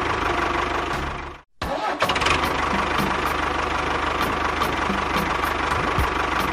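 A tractor engine running steadily. It cuts out abruptly about a second and a half in and resumes about half a second later.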